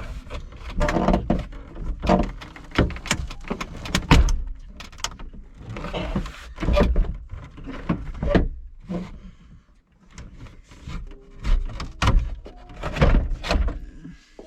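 Plastic interior trim panel on a 1994 Jeep Grand Cherokee's rear hatch being pulled and forced off by hand: a string of knocks, clicks and thuds against the hatch. The loudest knock comes about four seconds in, with a lull around ten seconds.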